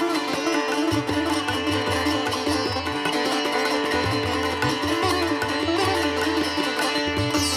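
Background instrumental music: a plucked string melody with bending notes over a steady drone.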